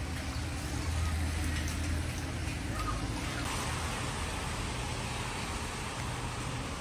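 Street traffic on a wet road: a car's low engine rumble, then a steady hiss of tyres on the rain-soaked pavement from about halfway through.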